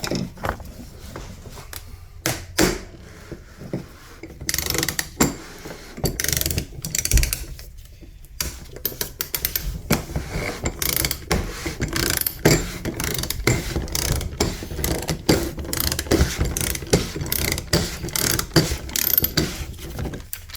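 Ratchet wrench clicking in quick, uneven runs as it turns a lock ring tool to undo the fuel pump's retainer ring on top of the fuel tank.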